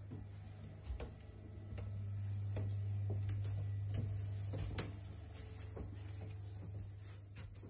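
Low steady hum, louder in the middle, under scattered soft knocks and clicks from someone walking with a handheld phone across carpet.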